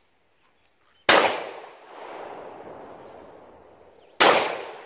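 Two 9mm pistol shots about three seconds apart, each sharp crack followed by a long echo that fades away. No ring of a bullet striking steel follows either shot, which the shooter takes for two misses.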